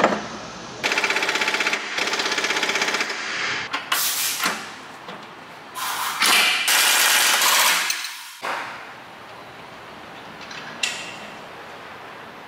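Air impact wrench rattling in four bursts as it runs a suspension nut, the last and longest ending sharply a little after eight seconds in. Quieter workshop noise follows, with a single metal clink.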